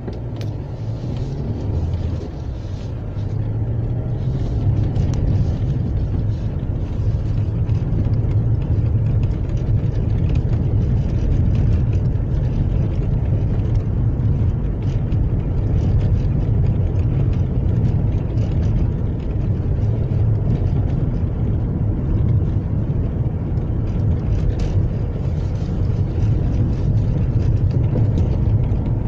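Car driving on a broken, patched asphalt road, heard from inside the cabin: a steady low rumble of engine and tyres, with a few brief knocks from the rough surface.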